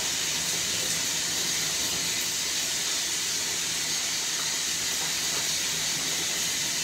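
Shower running: a steady hiss of spraying water.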